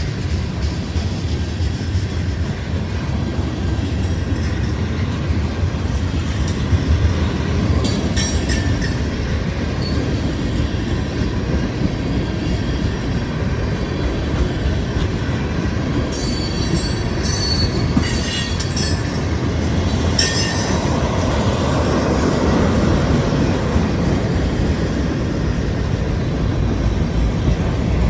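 Freight train cars rolling past, a steady rumble of wheels on rail with short bursts of high-pitched wheel squeal about eight seconds in and several more between about sixteen and twenty seconds in.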